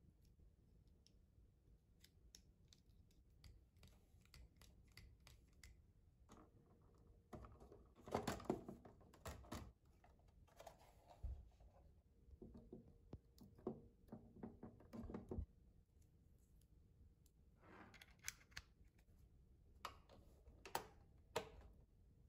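Small plastic parts of a toy record-cutting kit being handled and fitted together: scattered light clicks and rattles, busiest in the middle, with a few sharper single clicks near the end.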